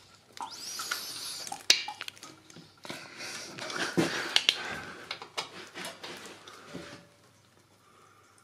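Irregular metallic clinks, knocks and scrapes of a wrench working the 13 mm oil drain plug loose under a Puch X30 moped's engine, dying down after about seven seconds.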